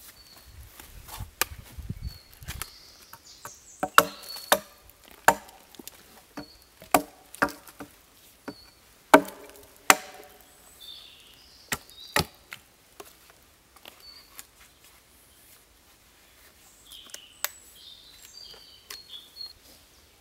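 Hatchet striking wood: a series of irregular, sharp wooden knocks, some with a short hollow ring. The blows come thickest and loudest in the first half and thin out later.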